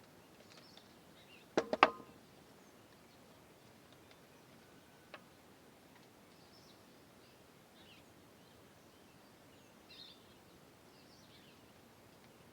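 Three sharp clicks in quick succession about two seconds in, the last ringing briefly, then a single faint click a few seconds later, over faint bird chirps.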